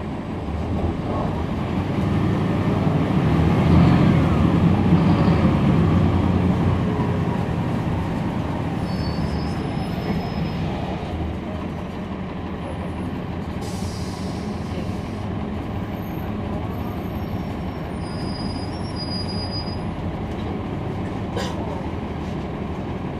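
Cummins ISL9 inline-six diesel engine of a NABI 40-SFW transit bus, heard from on board. It grows louder over the first four seconds, then eases back and runs steadily at a lower level. There is a single sharp click near the end.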